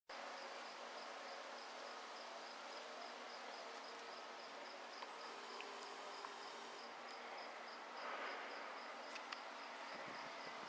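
Faint insect chirping: a high chirp repeating evenly over a steady background hiss.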